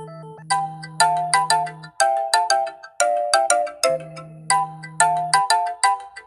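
Samsung Galaxy S25 Ultra ringtone playing: a quick electronic melody of short notes over a held low note that drops out briefly and comes back.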